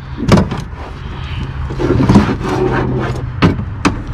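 Old power-window regulator and motor assembly being worked out of the SUV door shell: metal clanks and scrapes against the door, with sharp knocks about a third of a second in, around two seconds and near three and a half seconds, over a steady low hum.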